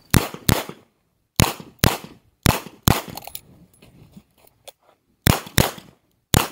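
Revolver shots, nine in all, mostly fired in quick pairs about half a second apart, with a pause of about two seconds near the middle before the last three.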